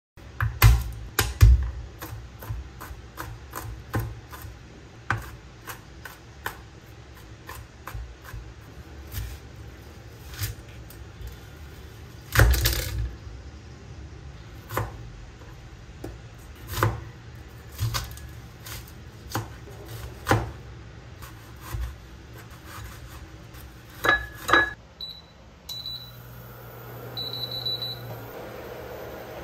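Chef's knife chopping an onion on a plastic cutting board: irregular sharp knocks on the board, one every second or two. Near the end come a few short electronic beeps from an induction cooktop's controls, then the cooktop's steady hiss and hum as it runs.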